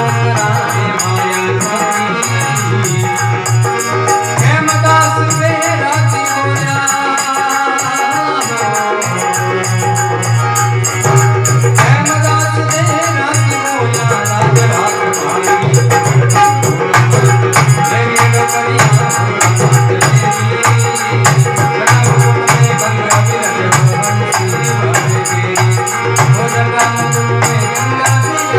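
Marwari folk music: fast rattling percussion and a melodic line over a steady low drone.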